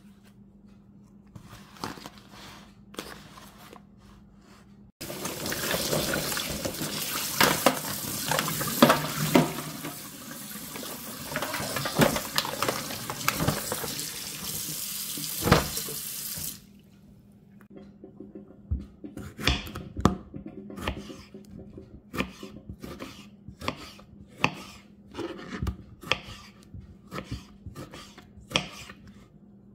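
Tap water running hard into a plastic tray of mussels in a stainless steel sink, with clicks and clatter of the shells as they are stirred, starting about five seconds in and cutting off sharply about halfway through. After that comes a series of knocks from a knife cutting through a tomato onto a plastic cutting board.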